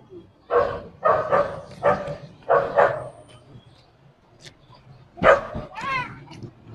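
A dog barking repeatedly: a quick run of barks in the first three seconds, a pause, then more barking with a high, wavering whine about six seconds in.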